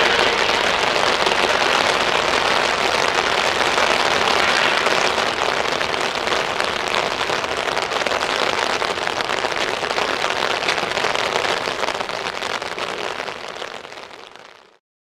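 Steady hiss of rain, with the departing Eurocopter EC135 P3 twin-turbine helicopter fading into the distance; its turbine whine dies away within the first second. The whole sound fades out near the end.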